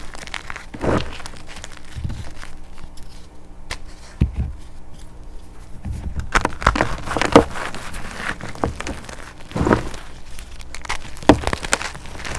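Crunchy chalk coated in black paste being crushed by hand: irregular crackling and crunching, with louder crunches around a second in, in the middle and near the end.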